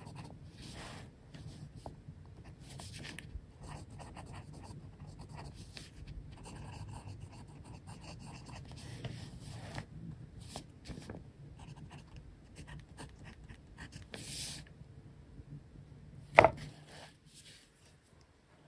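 Montblanc Writers Edition fountain pen with a fine nib scratching across notebook paper in quick short strokes as words are handwritten. A single sharp click near the end.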